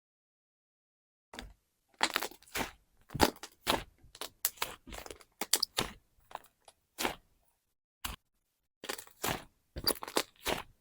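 Fluffy slime being pressed and worked by hand, giving a run of short clicks and pops at uneven intervals, starting about a second in.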